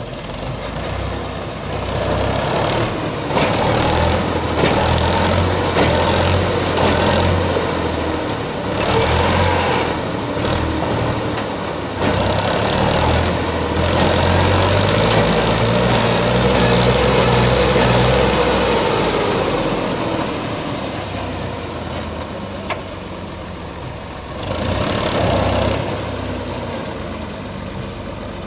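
Massey Ferguson 260 tractor's diesel engine revving hard under load as the tractor tries to pull itself out of the loose soil it is stuck in. The revs swell and ease in several surges, strongest through the middle, dropping back later and pushed up once more briefly near the end.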